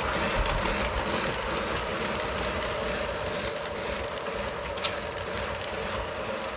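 Lionel model train running along the layout's metal track: a steady electric-motor hum and wheel rumble, with one sharp click about five seconds in.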